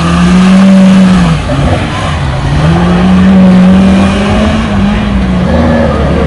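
Competition car's engine revving hard as it drives a hill slalom course. The revs are held high, drop about a second and a half in, climb again and hold, then fall back near the end.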